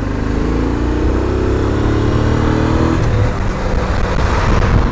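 A motor vehicle engine accelerating, its pitch rising steadily for about three seconds, then giving way to a rougher, noisier engine and road sound.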